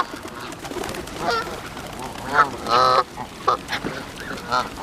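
Geese honking at close range: a run of short, repeated honks, the loudest about two and a half to three seconds in.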